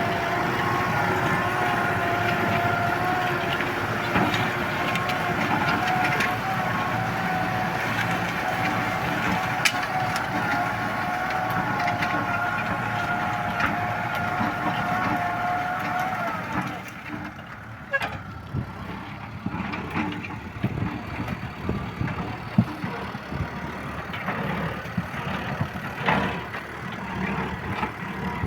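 Kubota M6040S tractor's four-cylinder diesel engine running steadily with a high, even whine. A little past halfway the whine stops and the engine drops to a quieter, uneven sound with scattered knocks.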